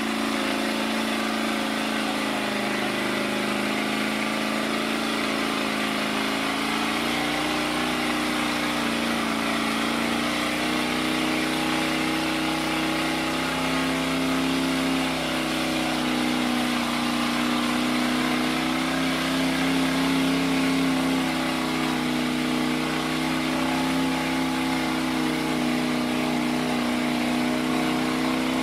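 Ford pickup mud truck's engine running hard under load as it churns through a deep mud pit on tractor tires, its pitch wavering slightly and rising a little about seven seconds in.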